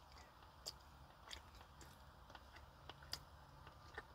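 Faint chewing of boiled pork rib meat, heard as a few scattered soft mouth clicks over a low steady hum.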